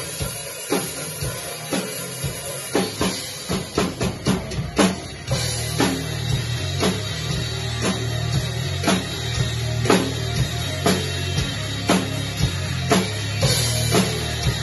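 Drum kit playing along to a rock song. A run of quickening drum hits builds up, then heavy bass and guitar come in about five seconds in under a steady beat of bass drum and cymbal hits.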